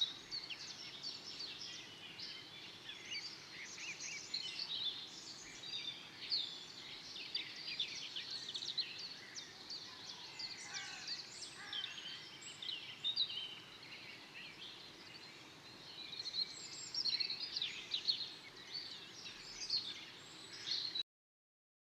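Forest birdsong: many songbirds chirping and trilling at once, overlapping high calls over a faint steady background hiss. It cuts off suddenly near the end.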